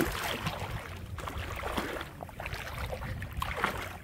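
Shallow seawater sloshing and splashing close by, in uneven bursts, with a sharp knock right at the start.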